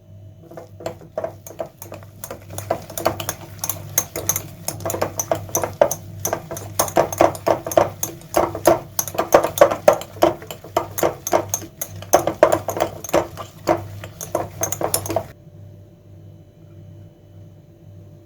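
A metal utensil clicks and scrapes rapidly and unevenly against a bowl as food is mixed or mashed, then stops suddenly about 15 seconds in. A steady low hum runs underneath.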